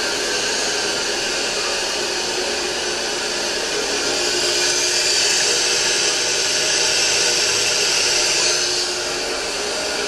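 Toilet tank anti-siphon fill valve refilling the tank after a flush: a steady hiss of water rushing in, a little brighter in the middle stretch and easing slightly near the end.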